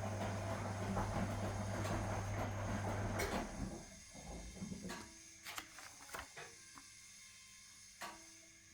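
1961 AEG Lavamat Noris washing machine running its drum, a steady motor hum with churning wash, which stops suddenly about three seconds in. After that the machine is quiet apart from scattered small clicks and knocks.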